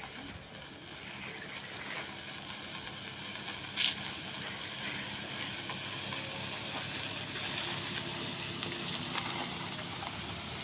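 Hyundai hatchback driving slowly across bare dirt toward the microphone, its engine and tyres running steadily and growing slightly louder as it nears. A single sharp click about four seconds in.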